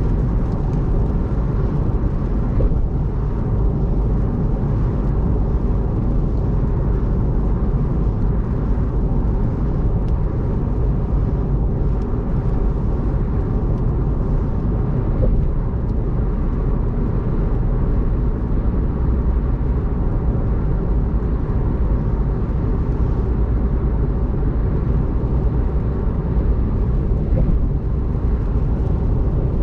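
Steady road noise of a car travelling at expressway speed on a rain-soaked road: a constant low rumble with tyre hiss from the wet surface.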